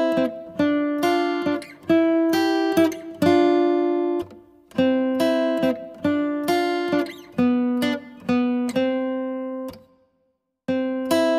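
Background music: plucked acoustic guitar playing a melody of single notes that each ring and fade. It breaks off for about a second near the end, then starts again.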